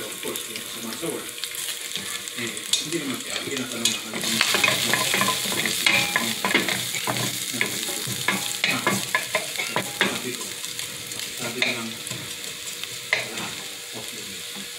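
Minced garlic sizzling as it sautés in oil in a stainless steel pan, with a spatula scraping and tapping against the pan as it is stirred. The scraping is busiest in the middle and thins out near the end.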